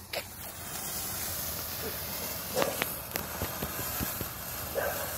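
A decades-old 1992 Stars Over America firework fountain burning, spraying sparks with a steady hiss that comes up within the first half second. A few scattered crackles and pops sound over the hiss.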